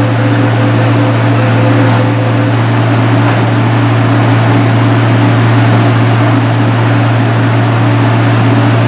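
East Rail Line electric train standing at the platform with its doors closing, its onboard equipment giving a loud, steady low hum. A fainter higher tone in the hum stops about two and a half seconds in.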